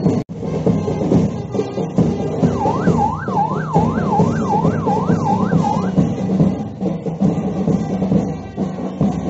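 A siren yelping in fast up-and-down sweeps, about two and a half a second, for roughly three seconds starting about two and a half seconds in, over steady music.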